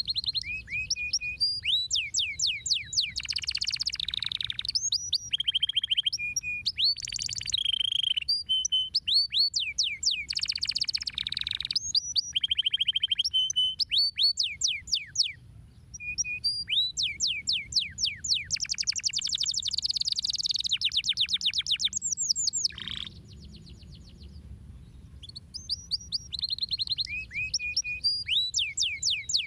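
Domestic canary singing a long song of rapid trills, each phrase a fast run of repeated notes, with a couple of short breaks between phrases.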